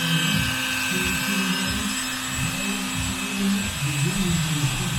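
Brushless drywall sander's motor running steadily with a high whine.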